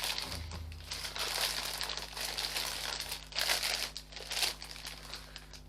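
Parcel packaging crinkling and rustling in irregular bursts as it is handled, loudest about three and a half seconds in.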